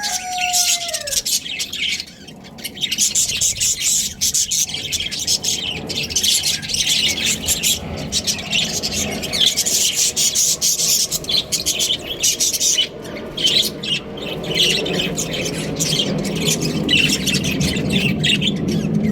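Budgerigars chattering and squawking continuously: a dense mix of quick, high chirps from several birds. A low hum builds underneath near the end.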